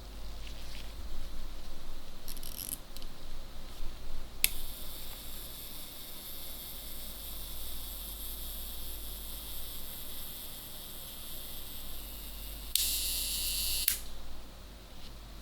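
Olympus ACE camera mechanism being worked: a sharp click about four seconds in, then a steady high whirring for about eight seconds, ending in a louder, harsher burst lasting about a second. A low mains hum runs underneath.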